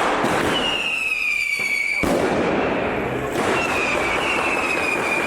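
New Year's street fireworks going off in a dense, continuous crackle of firecrackers. Over it sound two long whistles from whistling rockets, each a high tone that drifts slightly down, and a sharp bang about two seconds in.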